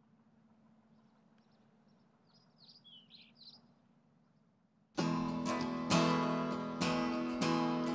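Faint bird chirps over a low hum, then about five seconds in an acoustic guitar comes in suddenly and loudly, strummed in strong strokes.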